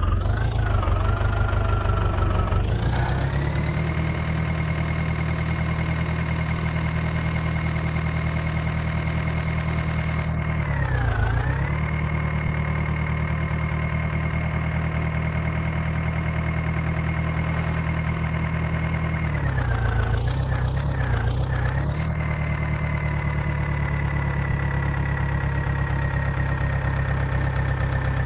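Diesel engine of heavy farm or earthmoving machinery running, revving up early on to a high steady speed. Its speed dips briefly once in the middle and several times in quick succession later, then slowly falls near the end.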